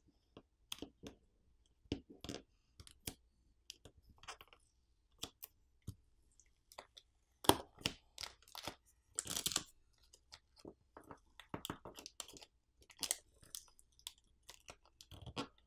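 Clear plastic battery adhesive pull pouch being peeled by hand off a Poco M6 5G's metal midframe: irregular crinkling and crackling of the film with small clicks, loudest about halfway through.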